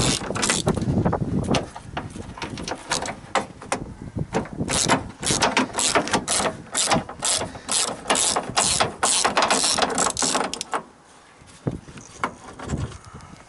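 Hand ratchet clicking in quick runs as it backs a bolt out of the door's window regulator, a bolt reckoned to be cross-threaded. The clicking stops near the end.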